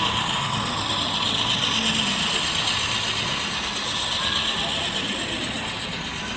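Model trains running on layout track: a steady whirring, clicking clatter.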